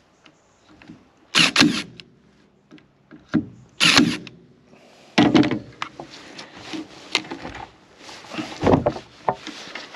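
Makita DST221 18 V cordless stapler firing staples over a thick cable into hard oak, a sharp mechanical shot each time, several times a second or more apart, with fainter knocks of handling between.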